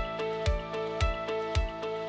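Background music: held steady tones over a low beat about twice a second.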